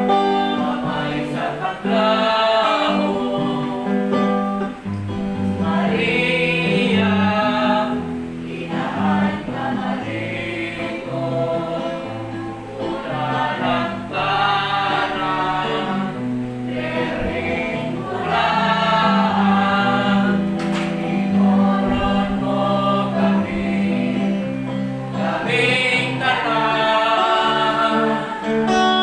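Devotional song sung by a group of voices, phrases with held, wavering notes over sustained low instrumental chords.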